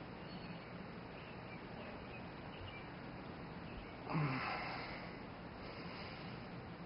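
A person's short breathy grunt about four seconds in, rising suddenly and fading over about a second, over a faint steady background hiss.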